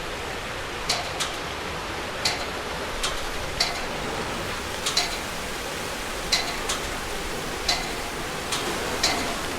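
Steady rush of river water, with short, sharp ticks about once a second at uneven spacing.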